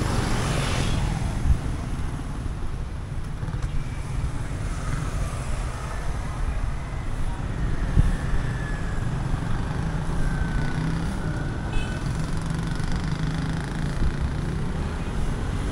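City street traffic: motorcycles and motorcycle-sidecar tricycles pass on the road with their engines running, over a steady low rumble.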